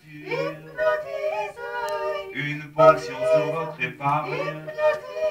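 Several voices, women and a man, singing together in harmony, with a low sustained note under the higher parts.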